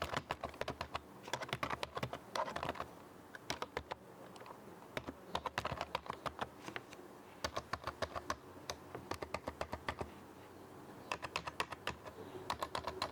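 Typing on a cheap membrane keyboard: fast runs of key presses, with short lulls about four seconds in and again near ten seconds.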